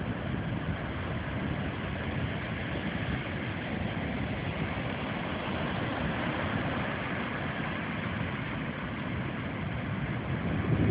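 Surf rolling in and washing up the beach, a steady rushing noise that swells a little near the end.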